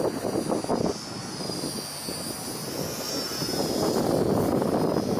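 The twin brushed electric motors and three-blade propellers of an EasySky micro P-38 RC plane in flight: a thin high whine that bends up and back down in pitch about three seconds in as the plane passes. Gusty wind noise on the microphone is louder than the whine.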